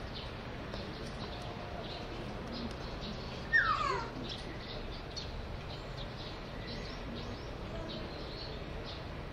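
Small birds chirping faintly and often over a steady background hum. About three and a half seconds in comes one loud bird call that slides down in pitch over about half a second.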